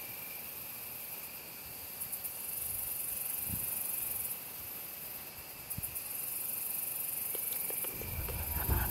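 Insects trilling in a steady high-pitched evening chorus that swells and drops back in long stretches of a second or more. A low rumble comes in near the end.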